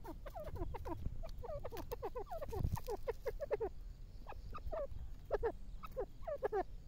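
Grey francolin (teetar) calling in quick runs of short, falling notes, several a second, with a low thump about two and a half seconds in.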